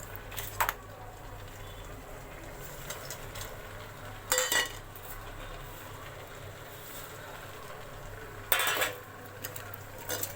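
Metal spoon scraping and clanking against a large cooking pot as grated carrots for gajar ka halwa are stirred, in three short bursts a few seconds apart, over a low steady hum.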